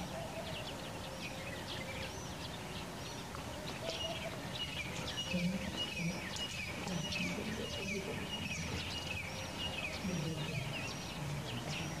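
A chorus of small birds chirping and twittering steadily, many short high calls overlapping throughout.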